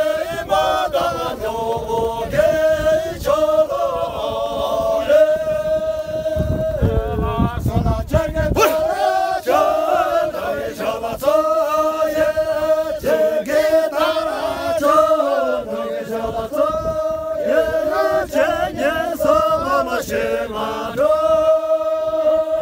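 A group of voices singing together without instruments: a chant-like folk song in unison, with long held notes, sung by dancers in a line. A low rumble from wind on the microphone sits under the singing for a couple of seconds near the middle.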